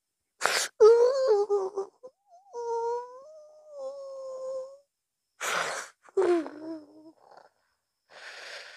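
A man moaning and whimpering in long, wavering cries, each set off by a sharp gasping breath. The gasps come twice, about five seconds apart.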